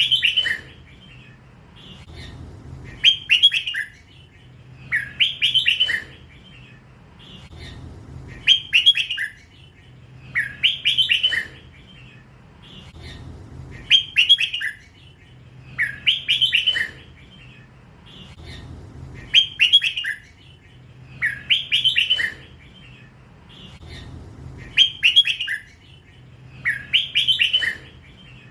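Young hybrid red-whiskered bulbul, still in its first feathers, singing in the drawn-out 'lak wai' style prized in Thai bulbul song contests. It repeats a short, clear song phrase about every two seconds.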